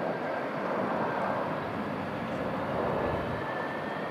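Embraer KC-390's twin IAE V2500 turbofan engines as the jet flies past in a banking turn. It is a steady jet roar with a faint high whine that edges slightly up in pitch.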